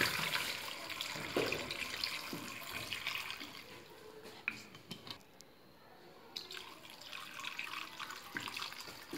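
Water poured from a glass bottle into a stainless steel pot full of raw vegetables, splashing steadily. The pouring stops about four seconds in and starts again about six and a half seconds in.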